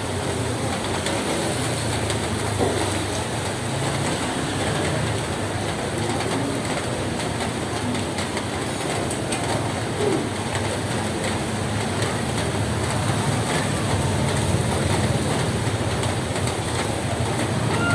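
Rain falling on a roof: a steady patter of many small drops.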